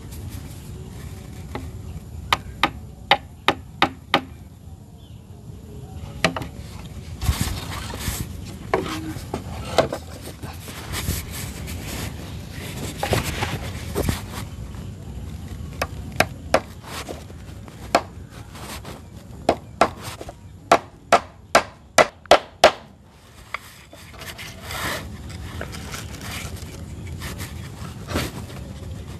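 A hand tool striking wood again and again, in runs of four to eight sharp blows about two to three a second, the last and loudest run speeding up near the end.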